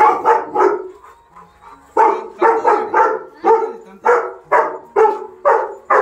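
Labrador retriever barking: three quick barks, a pause of about a second, then a steady run of barks about two a second.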